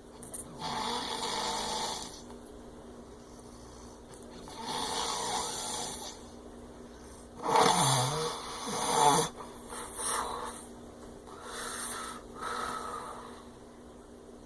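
A sleeping man snoring heavily, one snore about every four seconds. About seven and a half seconds in comes a louder, deeper snore in two parts, followed by a few shorter, uneven breaths.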